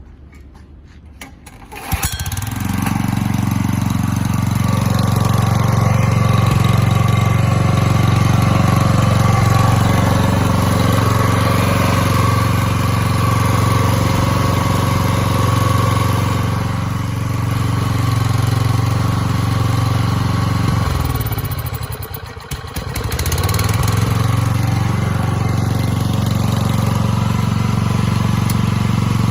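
Shindaiwa EG18S gasoline generator engine catching about two seconds in and then running steadily. Around twenty-two seconds in the engine speed sags briefly and comes back up.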